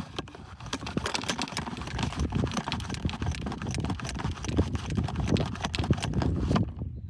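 Plunger-type golf ball washer being pumped up and down by hand, the ball scrubbing through the brushes inside with a rapid clatter that stops suddenly near the end.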